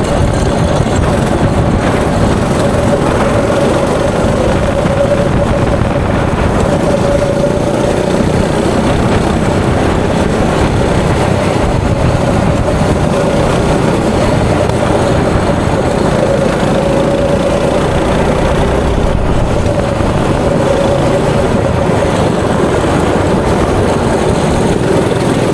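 Go-kart engine running at speed through a lap, heard from the driver's seat: a steady, slightly wavering engine note over a dense rush of noise.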